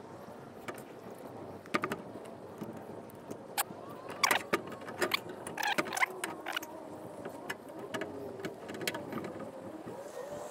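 Clicks and knocks of a new headlight unit being handled and fitted into its chrome surround and mounting bowl, with a cluster of sharp clicks about four to six seconds in.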